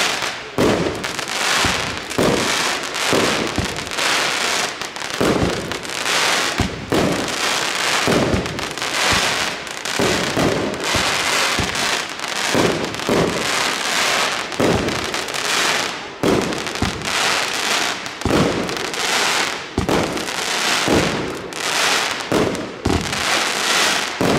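Funke Duplex-Cracker Rain firework battery firing. Shots go up roughly once a second, and each is followed by a dense crackle of delayed popping-flower stars, so the crackling runs on almost without a break.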